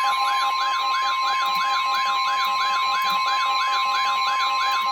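Weather-alert tone: NOAA Weather Radio's steady 1050 Hz warning alarm tone, with a fast warbling siren sweeping up and down about three and a half times a second over it. It is the alert that comes just before a severe thunderstorm warning is read.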